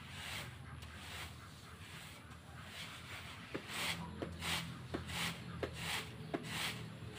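Wooden rake pushed and pulled through drying rice grain on a tarpaulin: rhythmic rasping swishes with small clicks, louder and about three strokes a second from about halfway in.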